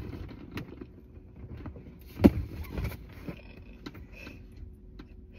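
Low, steady rumble of a car cabin, with scattered small clicks and rustles and one louder short knock a little over two seconds in.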